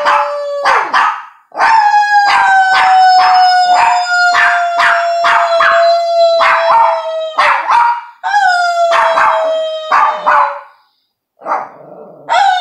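Small dog howling and yipping while a person howls along: two long howls, each sliding slowly down in pitch, the first about six seconds long and the second shorter, with quick yips over them.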